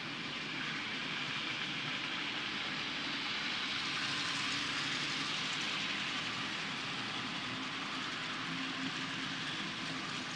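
Model freight train running past on a model railway: steady whirr of the locomotive's electric motor with a low hum and the rattle of the wagons' wheels on the track, growing louder as it passes close and easing off a little after the middle.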